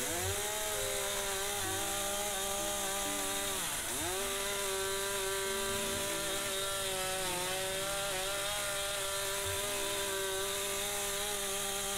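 Chainsaw running at full throttle while cutting into wood, its steady engine note dipping sharply twice as it bogs under load, at the very start and about four seconds in, then picking back up. The chain is not the sharpest but still cuts well.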